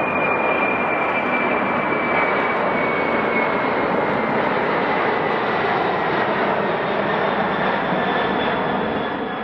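Jet airliner engines running loud and steady, with a high whine that slowly drops in pitch. The sound begins to fade near the end.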